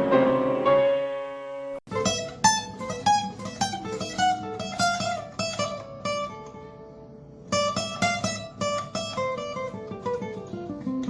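Music on plucked strings, guitar-like. A ringing chord dies away and cuts off just under two seconds in, then quick picked notes follow, with a softer pause in the middle.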